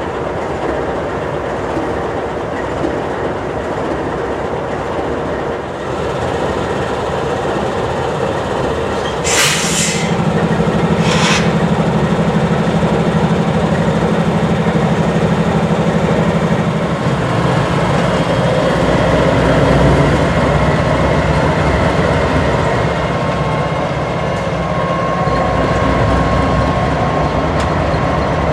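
Freight train moving, with a steady rumble of wheels and cars. About a third of the way in come two short hisses, and a diesel locomotive's engine drone comes up underneath, its pitch stepping down slightly about halfway through.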